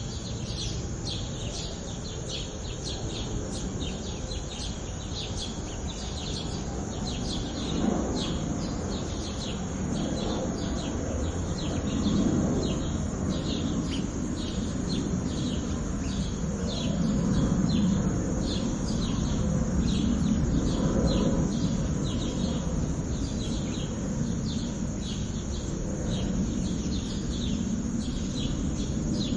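A flock of sparrows chirping in quick, continuous short notes. Under them a low rumble builds about a third of the way in and is loudest in the middle and later part: a plane passing overhead. A single sharp knock about eight seconds in.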